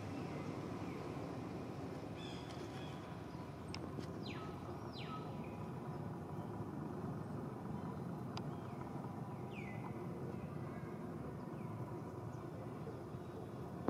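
Outdoor ambience: a steady low rumble, with a few short chirps that fall in pitch, a pair about four seconds in and a fainter one near ten seconds.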